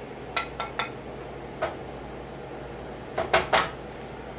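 A spoon clinking against a saucepan and a ceramic bowl as rice is scooped out and served. There are about seven sharp, briefly ringing knocks: three quick ones at the start, one about a second and a half in, and three close together past three seconds.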